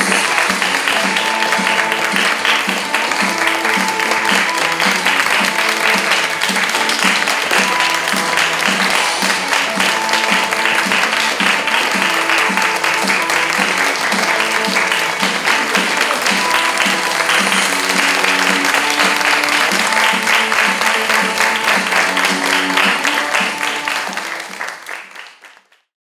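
An audience applauding over instrumental music, both fading out near the end.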